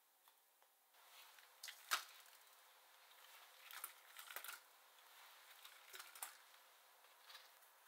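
Hulled strawberries being put by hand into a stainless steel bowl: soft knocks, light clicks and rustling, with the sharpest knock about two seconds in.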